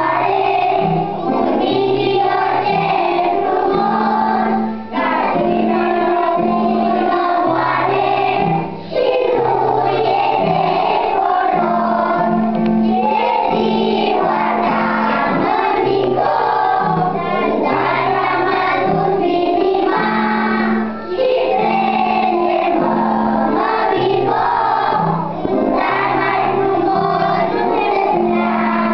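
A group of young children singing a song together in unison, over a keyboard accompaniment holding steady low notes beneath the melody.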